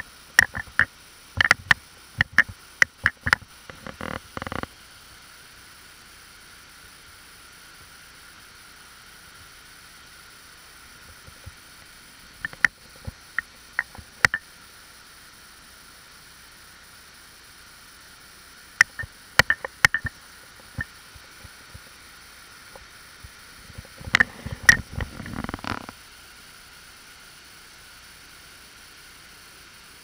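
Clusters of sharp clicks and knocks, from handling and bumping of a GoPro in its housing, come and go four times over a steady faint hiss. A longer rustling patch comes near the end.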